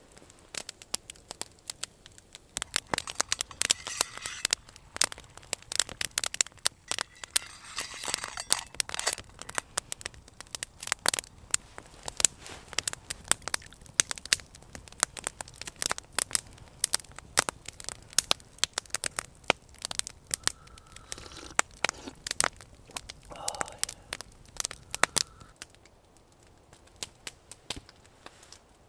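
Wood campfire of split logs crackling, with frequent sharp pops and short stretches of hiss a few seconds in and again around eight seconds.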